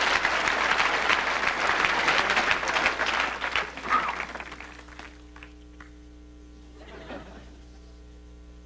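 Studio audience laughing and clapping, loud at first, then dying away about four to five seconds in. A faint steady hum and a few small soft sounds remain.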